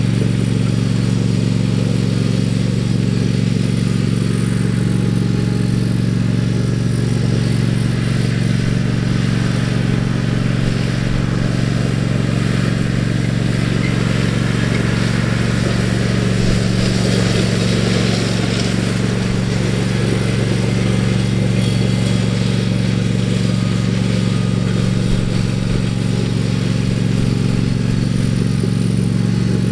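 Small engine of a garden tractor running at a steady speed, a constant low hum.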